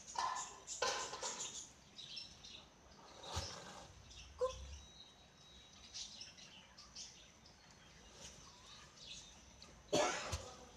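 Strutting domestic turkey toms in display: several short puffing 'spits', the loudest near the end, some followed by a low drumming hum. Small birds chirp faintly in the background.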